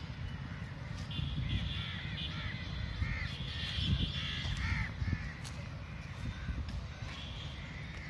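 Crows cawing, a run of short repeated caws from about one to five seconds in, over a steady low rumble.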